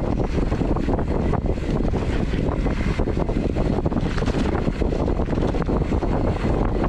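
Loud, steady wind buffeting the microphone, a dense low rumble of rushing air with many small clicks and knocks through it.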